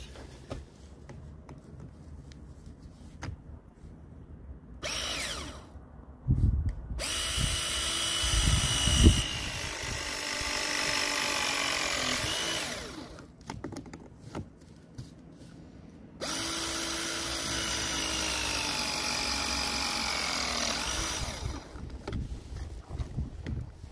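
Milwaukee battery-powered press fitting tool crimping copper pipe couplings. There are two press cycles of about five to six seconds each, and in each the motor's whine sinks slowly in pitch before cutting off. A short blip of the motor and some handling knocks come just before the first cycle.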